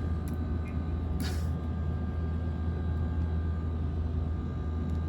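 Steady low rumble of a vehicle, with a brief hiss about a second in.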